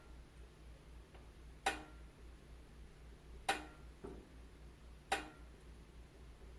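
Wood fire crackling in a fireplace: sharp pops at a near-regular pace of one every second and three-quarters, with a couple of fainter snaps between them, over a steady low hum.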